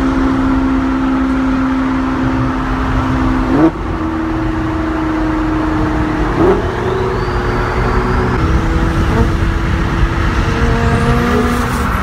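Lamborghini Gallardo's V10 engine running at highway cruising speed, heard from inside the cabin with road and tyre noise. The revs rise sharply and briefly about three and a half seconds in and again about six and a half seconds in, then settle at a slightly different pitch.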